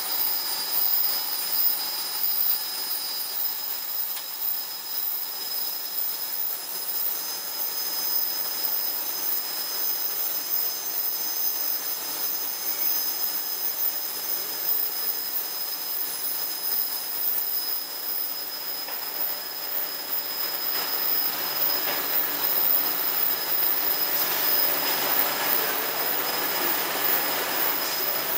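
Vial washing and drying machine running: a steady mechanical hiss with a few thin, high steady whines, growing somewhat louder in the last third.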